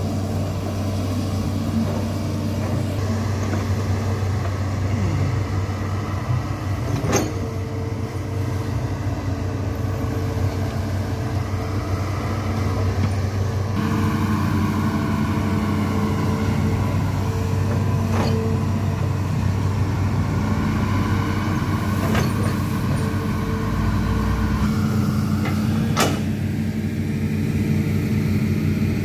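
Hitachi Zaxis 210F amphibious excavator's diesel engine running steadily while the machine digs, its note shifting about halfway through. A few sharp clicks or knocks sound over the engine.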